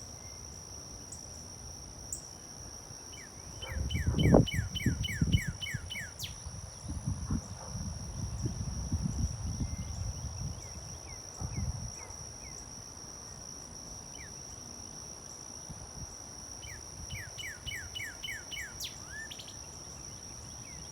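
A cardinal singing two phrases of quick, repeated down-slurred whistles, about eight notes each: one about three seconds in, the other near the end. A steady high insect drone runs throughout. A low rumble, loudest about four seconds in, lasts several seconds under and after the first phrase.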